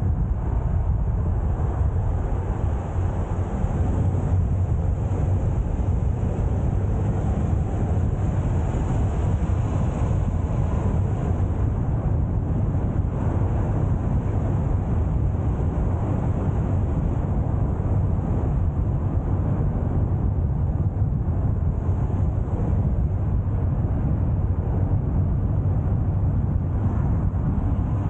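A car driving at a steady speed: a continuous low rumble of engine and tyre noise on the road.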